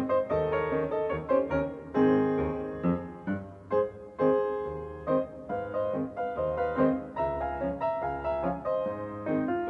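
Background piano music: a steady run of struck notes, each starting sharply and fading away.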